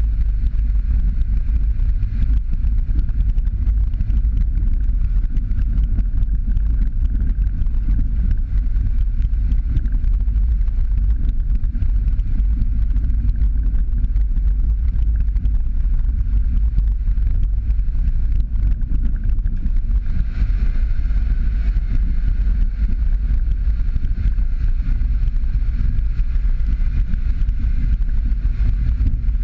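Jeep Patriot driving steadily along a rough dirt road: a continuous low rumble of engine, tyres on gravel and air buffeting the outside camera. About two-thirds of the way in, the sound gets slightly brighter.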